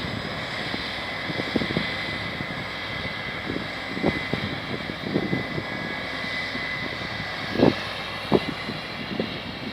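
Case 8120 combine harvester running: a steady machine drone with a constant high whine, broken by scattered short knocks, the loudest a little past halfway through.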